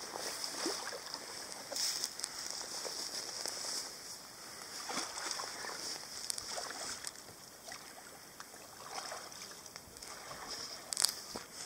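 Kayak paddle strokes dipping and splashing in shallow creek water, with scattered small splashes and clicks and a sharp click near the end.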